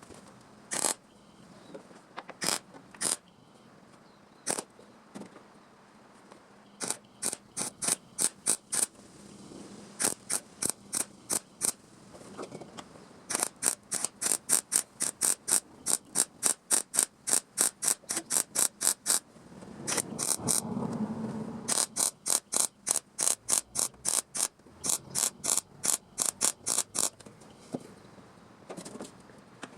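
Rapid mechanical clicking in runs of several seconds, about five clicks a second, with a brief low rumble about twenty seconds in.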